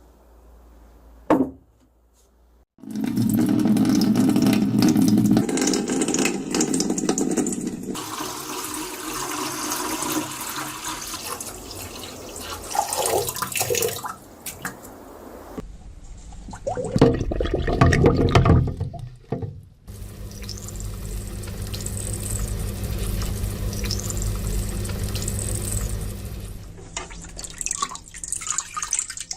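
Water running from a tap into a sink, starting about three seconds in after a single short click, its flow and splash changing several times.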